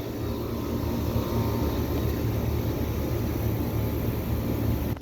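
Carrier central air-conditioner condenser unit running: a steady hum of the compressor and outdoor fan, working normally.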